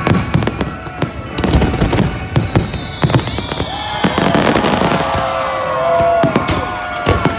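Fireworks going off in rapid succession, with repeated sharp bangs and a long whistle that falls in pitch in the first half, over a show's music soundtrack.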